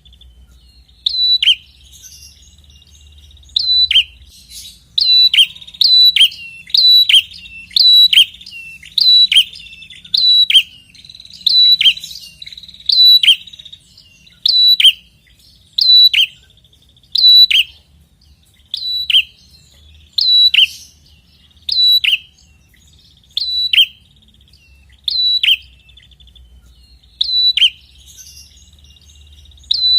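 Red-headed prenjak (a small Indonesian warbler) calling insistently: sharp, loud chirps repeated about once a second, each a high note dropping in a quick downward sweep, with a few brief pauses.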